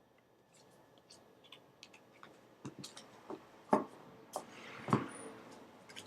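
Tarot cards being handled: a string of small clicks and taps, with two louder knocks nearly four seconds in and about five seconds in, and a short rustling slide around the second.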